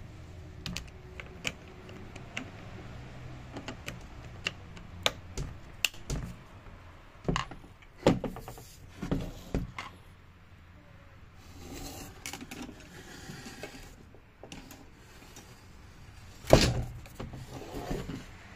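Hands handling a new Stihl MS 271 chainsaw: irregular clicks and knocks of its plastic housing and parts, with the loudest knock near the end.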